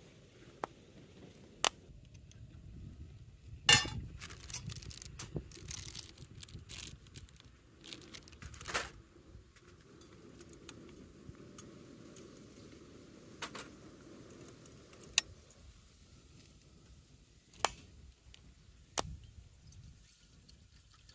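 Light metal camping gear being handled: scattered clinks and jingling rattles at irregular moments, with a few louder knocks, over a little rustling.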